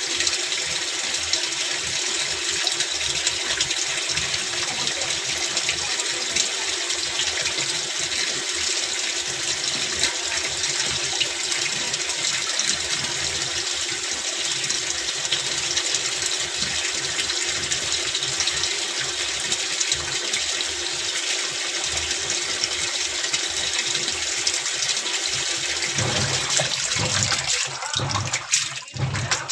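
Water rushing steadily into a top-load washing machine's tub as it fills. About 26 s in, the rush breaks up into an uneven, lower sound.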